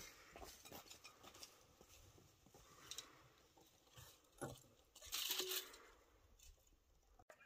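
Faint footsteps and scattered crunching and rustling as a woven basket of dry straw is carried through a wooden doorway, with a louder scraping rustle about five seconds in.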